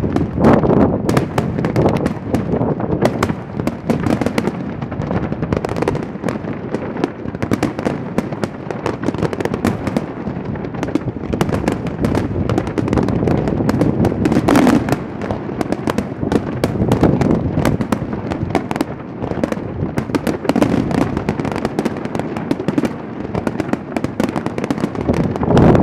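Fireworks going off in rapid, continuous succession: a dense run of crackling bangs and pops with no break.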